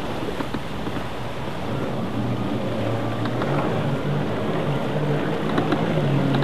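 Rescue water craft (jet ski) engine running under the load of towing a loaded inflatable boat, over a constant rush of churning water. A steady low engine tone comes through about two seconds in.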